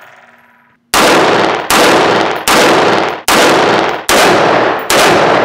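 Semi-automatic AR-style 5.56 NATO rifle firing six shots at an even pace, about one every 0.8 s, starting about a second in. Each crack rings on in a long echo off the concrete walls of an underground indoor range.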